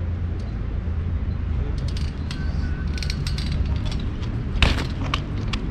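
Fixed-gear bicycle ridden through a trick on asphalt: light clicks around the middle and one sharp knock a little before the end, over a steady low rumble.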